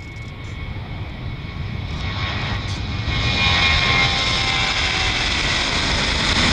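Boeing 737-800 jet's CFM56-7B turbofan engines at takeoff thrust during the takeoff roll, growing steadily louder as the plane runs past, with a whining tone joining the roar about halfway through.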